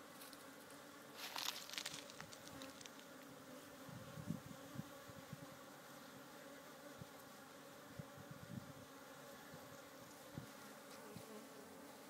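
Steady drone of a hive full of African honey bees, the combined hum of many wings. A short crackling rustle comes about a second in, and a few soft low knocks follow later.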